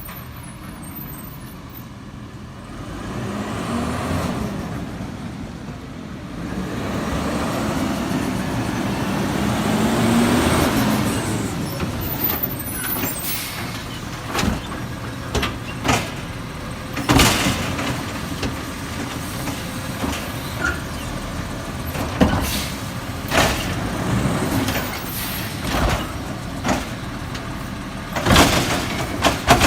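Garbage truck running, its engine rising and falling in pitch twice in the first half, then a string of loud bangs and clunks over the steady engine through the second half.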